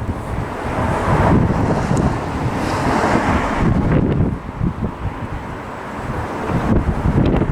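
Wind buffeting the microphone: a loud, uneven rushing with no bell tones, swelling about a second in and easing off around the middle before picking up again near the end.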